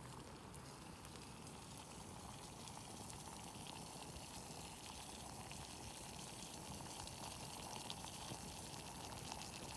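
Faint, steady hiss of water.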